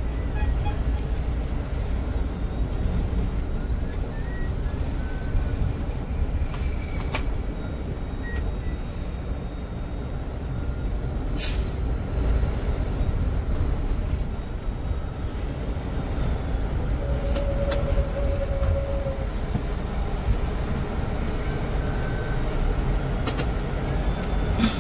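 Bus running with a steady low rumble of engine and road noise.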